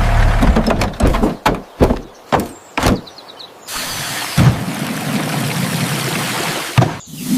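A vehicle engine running, then cutting out in a string of sputtering bursts over about two seconds. It is followed by a steady hiss with a couple of short thumps.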